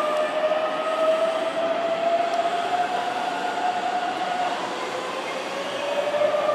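Keihan 7000-series electric trains pulling out of the station, their traction motors whining with a tone that rises slowly in pitch as they gather speed, over the rumble of the wheels.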